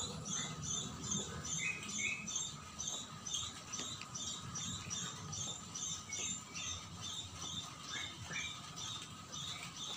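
A cat crunching and chewing dry kibble, a quick run of small crackly crunches. A high chirping repeats several times a second in the background.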